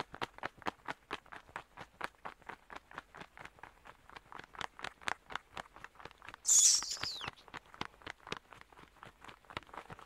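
Cartoon bat sound effect: rapid, fast-repeating wing flaps throughout, with one loud, high shrill squeal about six and a half seconds in that falls in pitch as it ends.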